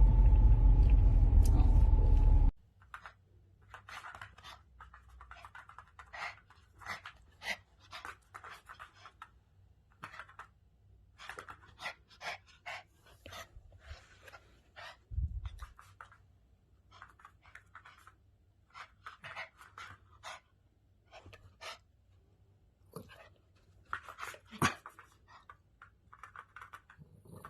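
A loud rumble that cuts off suddenly about two and a half seconds in. It is followed by a dog panting in quick, uneven breaths that go on to the end.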